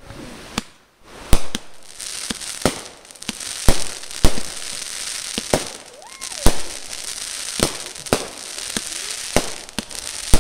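Fireworks going off: a dozen or so sharp bangs at irregular intervals over a steady hissing crackle from the golden spark trails, after a second of near silence near the start.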